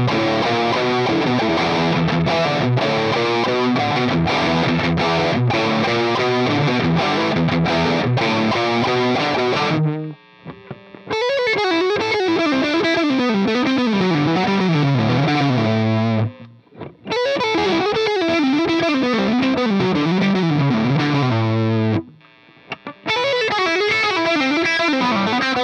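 Gibson Custom Shop Les Paul Special Doublecut electric guitar with CustomBucker Alnico III humbuckers, played with distortion: a dense riff, then repeated phrases that wind down in pitch. The playing breaks off briefly three times.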